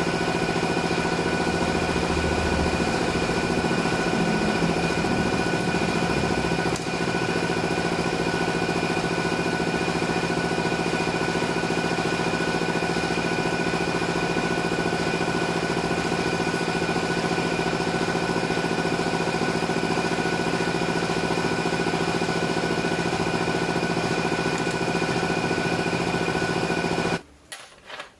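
Car engine idling steadily, with a constant hum and whine, then cut off abruptly near the end.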